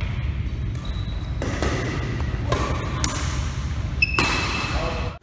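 Badminton rally: rackets strike the shuttlecock in a string of sharp hits, with a brief high squeak about four seconds in, over a steady low hum of the hall.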